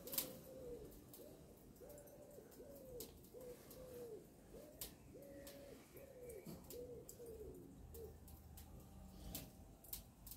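A pigeon cooing, a long series of low, soft coos, each note dropping at its end, that stops about three quarters of the way through.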